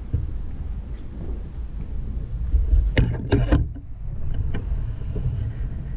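Thunder rumbling low and steadily, with a burst of several sharp cracks about three seconds in.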